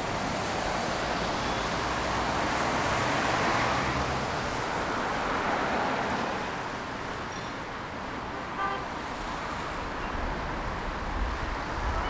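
Road traffic on a wet street: the hiss of tyres on wet asphalt swells and fades as vehicles drive by. A brief horn toot sounds about two-thirds of the way through, and a low engine rumble builds near the end.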